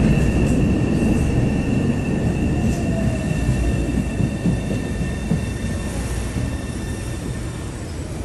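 MBTA Orange Line subway train rumbling at the platform with a steady high wheel squeal. The rumble slowly fades and the squeal dies away about halfway through.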